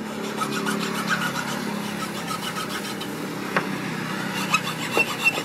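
Small metal file rasping in short strokes across the tips of a wooden slingshot fork, cutting the grooves for the bands, with a few light clicks. A steady engine hum runs underneath.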